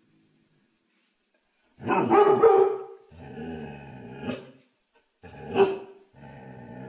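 A dog barks loudly about two seconds in, then keeps up a drawn-out, steady grumbling moan for over a second; it barks again about five and a half seconds in and follows with another long moan.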